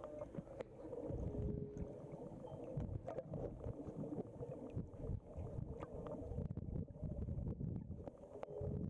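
Underwater sound picked up by an action camera in its waterproof housing: a muffled, uneven low rumble of water moving around the camera as the snorkeler swims, with a few faint clicks.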